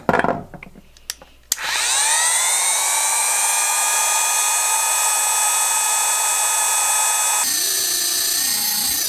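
Dumore 8226 sensitive drill press motor switched on after a brief burst and a couple of clicks, spinning up within about a second to a steady high-pitched whine at its full speed of around 17,000 RPM. Its tone shifts slightly near the end.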